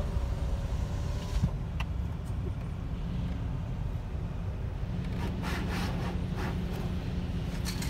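Steady low rumble of a tunnel car wash's machinery and the car's engine idling in neutral, heard from inside the closed car. There is a single thump about a second and a half in, and from about five seconds in the hum grows and bursts of hiss come and go.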